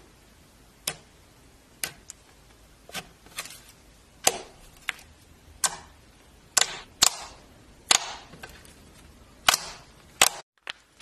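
Fingers poking and pressing into clear glitter slime, making sharp pops and clicks roughly once a second, about a dozen in all.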